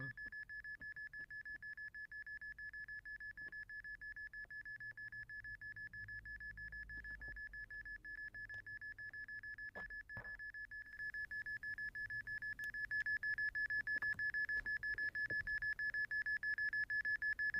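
Smartphone hidden-camera detector app beeping: one steady high tone pulsed in rapid, even beeps, growing louder partway through. It is the app's alarm for a high magnetic-field reading near the phone.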